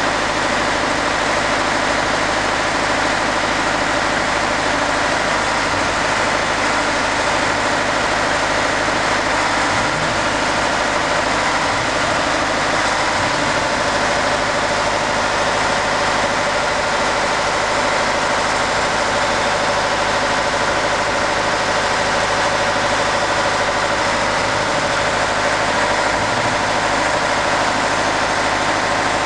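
Heavy engine running steadily at idle, a constant even drone with no change in speed.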